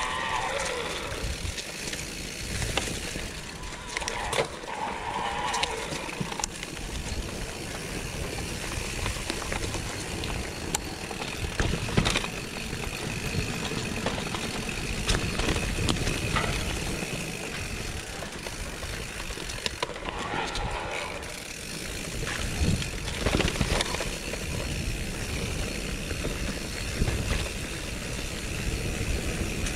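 Mountain bike riding down a rough singletrack trail: tyres rolling over dirt and stones, with the bike rattling and knocking over the bumps, a few sharper knocks standing out, and wind noise on the microphone.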